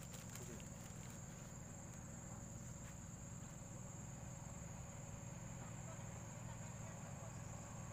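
Insects chirring in a faint, steady, high-pitched drone, over a low steady hum.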